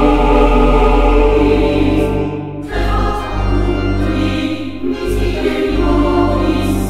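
Background music: a choir singing long held chords that change twice.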